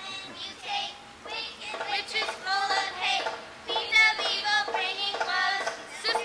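A song: music with singing voices, going on in phrases throughout.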